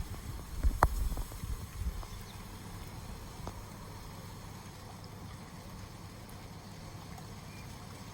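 Wind gusting against the microphone with a low rumble for the first two seconds, and a sharp click about a second in. After that a steady hiss of wind and light rain.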